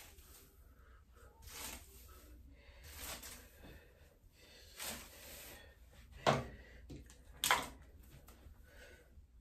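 Hairbrush stroking through long hair, a soft swish every second or two. Two louder, sharper sounds come a little past the middle.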